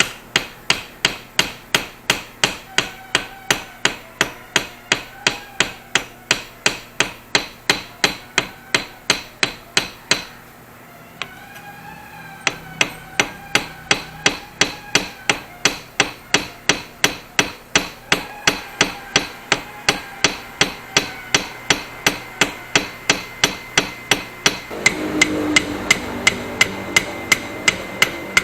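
Rapid, evenly spaced hammer blows, about three a second, with a break of about two seconds near the middle.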